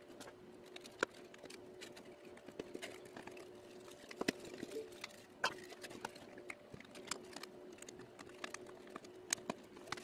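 Light, irregular clicks and taps of thin plywood case panels and a small circuit board being handled and pressed together by hand, over a faint steady electrical hum.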